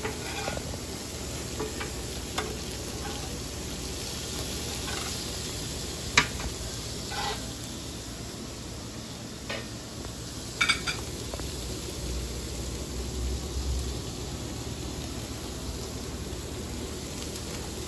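Hamburger patties sizzling on a gas grill: a steady frying hiss with a few short sharp clicks and taps around the middle.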